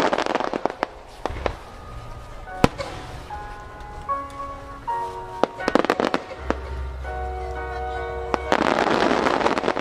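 Aerial fireworks shells bursting over music with sustained notes: scattered sharp bangs through the middle, then a dense, loud burst of crackling near the end as a large shell fills the sky.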